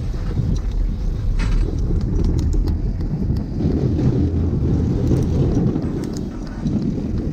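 Wind buffeting a GoPro Hero6 microphone on a moving bicycle, with the camera's wind-noise reduction switched off: a heavy, uneven low rumble, with light scattered clicks from the bike over it.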